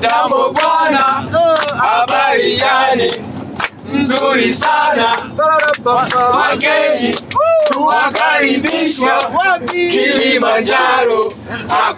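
A group of men from the trek crew singing together in Swahili with hand claps: the crew's celebration song at the end of the climb.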